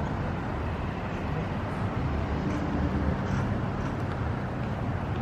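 Steady low rumble of motor-vehicle engines and traffic, with a slightly higher engine hum joining about two seconds in.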